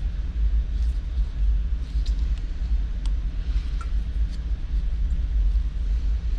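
A steady low rumble, with a few light clicks of small metal parts being handled.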